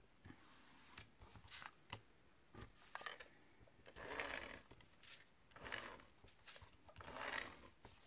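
Faint rustling and sliding of card stock being handled, in several soft swells, with a few light taps of card on the mat.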